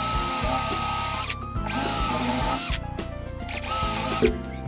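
Cordless drill boring a hole down into the end of a pallet-wood block, its motor whining in several runs with short stops between. A sharp knock comes near the end.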